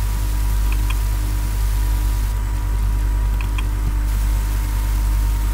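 Steady low electrical hum with a thin high whine above it, the background of the recording setup, and two faint clicks about a second and three and a half seconds in.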